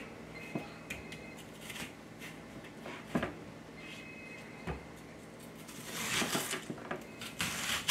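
Chef's knife cutting into a peeled onion on a bamboo cutting board: faint scattered taps and crunches, then two louder rasping cuts about six seconds in and near the end.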